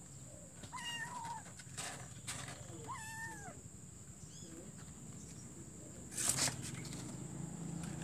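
Kitten meowing twice, about a second in and again about three seconds in, each call about half a second long. A short scratchy burst about six seconds in is the loudest sound.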